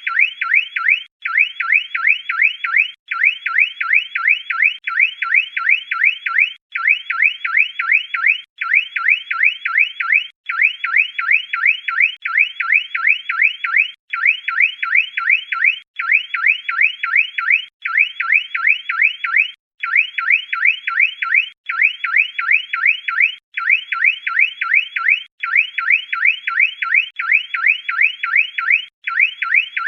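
Car alarm siren sounding continuously: a high-pitched electronic tone in fast, repeating rising sweeps, broken by brief gaps about every two seconds.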